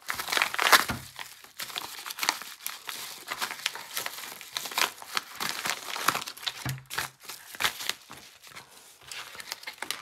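Packaging crinkling and rustling in the hands as a small fidget toy is unwrapped, with irregular sharp crackles throughout.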